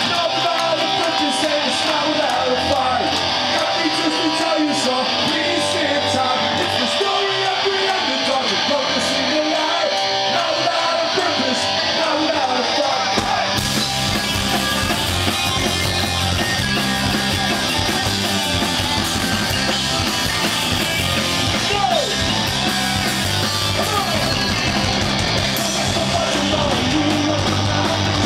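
Punk rock band playing live: electric guitar at first, then bass, drums and cymbals come in about halfway through, with a singer's voice over the band.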